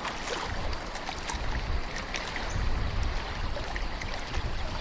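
Running water of a stream and waterfall: a steady rushing noise with a heavy low rumble and small splashes.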